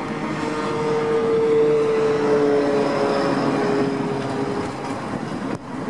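A vehicle's engine drone that swells and slowly drops in pitch as it goes by, then dies away about five seconds in.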